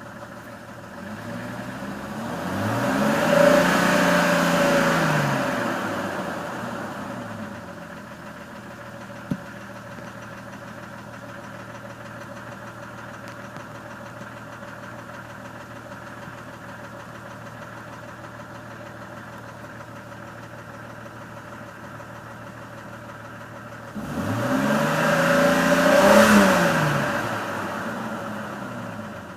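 2001 Jeep Cherokee's 4.0L straight-six engine idling with a tick, revved up and let fall back twice, once about a second in and again about 24 seconds in. The tick persists even when warm and its cause is unknown to the owner, who suspects the lifters or piston skirts. A single sharp click sounds about nine seconds in.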